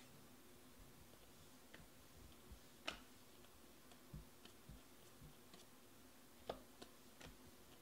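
Faint, scattered clicks of a stack of Panini Prizm baseball cards being handled and flipped through card by card, the loudest about three seconds in, over near silence.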